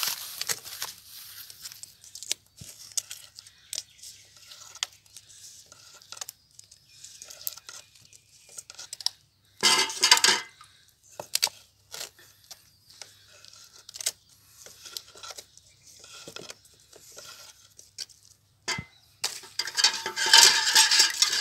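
Wooden kali sticks working thick ragi (finger-millet) dough in a metal pot: irregular scrapes and knocks against the pot, with a louder scraping stretch about ten seconds in and a denser run of clattering near the end.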